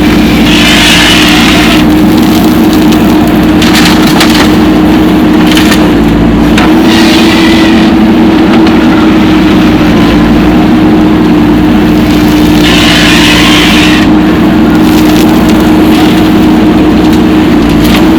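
Diesel engine of heavy machinery running steadily at a constant pitch, with a hiss that swells briefly about every six seconds.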